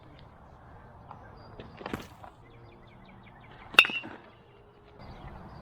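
Sharp smacks of a baseball at home plate: a lighter one about two seconds in and a loud, crisp one near four seconds in with a brief ring, over faint field noise.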